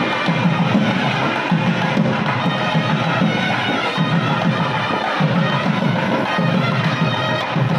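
Traditional South Indian temple procession music: a loud wind instrument playing over drums with a steady, repeating beat.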